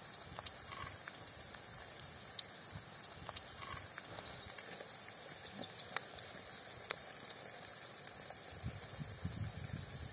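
Herb frittata (kookoo sabzi) patties frying in shallow oil, a steady faint sizzle with scattered sharp pops and clicks; the loudest click comes about seven seconds in.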